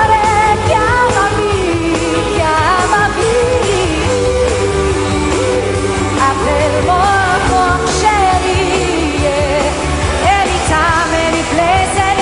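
A female pop singer performing live with a band, with sliding runs, vibrato and long held notes, climbing into higher notes near the end.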